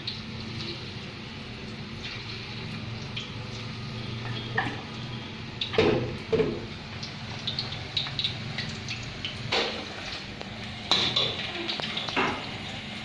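Kitchen work sounds: scattered clinks and knocks of utensils and dishes over a steady low hum, with a few louder knocks about six seconds in and again near the end.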